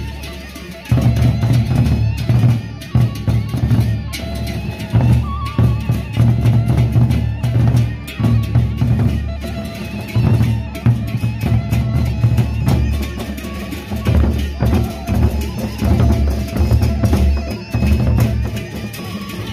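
Gendang beleq ensemble playing: the large Sasak double-headed barrel drums beaten in a fast, driving rhythm. The drumming drops off briefly and comes back in strongly about a second in.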